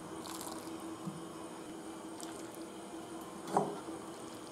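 Ladlefuls of wet pea curry (ghugni) being spooned from a steel ladle into a wooden bowl, with soft liquid squishing and dripping. About three and a half seconds in the ladle gives a sharp knock with a short ring.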